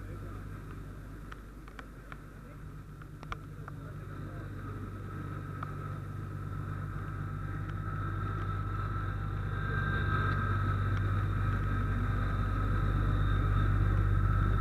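A large engine running steadily with a low hum, growing louder from about four seconds in. A few light clicks come in the first few seconds, and a higher whine joins about ten seconds in.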